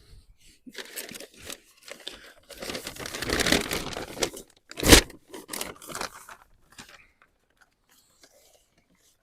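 Potato plants being pulled up by hand: stems and foliage rustling and tearing, roots ripping out of the soil, with one louder sharp snap about five seconds in.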